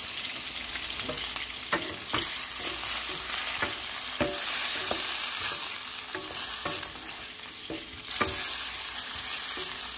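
Chicken pieces and sliced onions sizzling in oil in a stainless steel pan, stirred with a wooden spatula that knocks and scrapes against the pan again and again.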